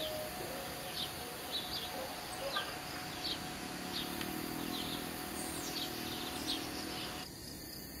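Forest birds chirping in short, high notes about every half second over a steady high hiss. The chirping stops abruptly about seven seconds in, leaving a quieter hiss.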